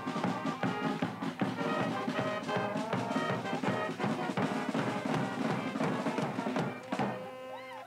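Band music with brass and a steady drum beat, ending on a held chord near the end.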